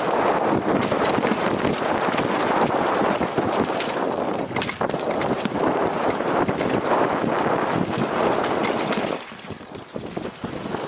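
Mountain bike descending a dirt trail, heard from a helmet-mounted camera: a steady rush of tyres on dirt and wind on the microphone, with frequent clacks and rattles from the bike over bumps. It turns quieter for a moment near the end.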